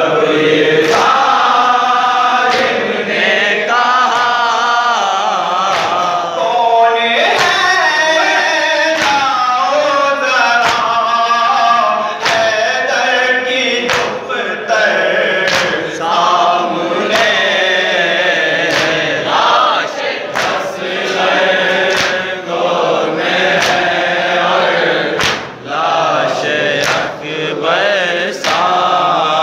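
Live noha: a male reciter singing a Shia mourning lament into a microphone, with a group of men chanting along in chorus. Sharp hand-on-chest slaps of matam keep the beat, roughly once every second.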